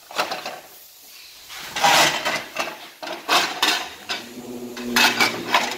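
Loose sheet-steel truck bed floor panel being handled and lined up by hand: metal clattering and scraping in about four short bursts. A low steady hum comes in about two-thirds of the way through.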